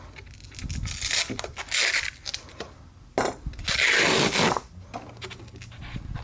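Scraping and rustling handling noises from sharpening supplies being picked up and set down on the bench: several short bursts, the loudest and longest from about three to four and a half seconds in.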